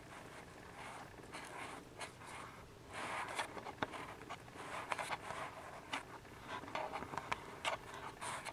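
Siamese Snowshoe kittens nursing: irregular soft scratchy rustling and small sharp clicks of suckling and of paws and bodies shuffling against the mother and the blanket, busier from about three seconds in.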